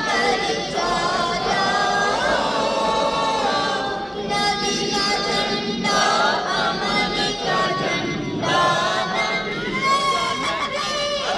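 Many voices singing a devotional chant together, with crowd noise underneath.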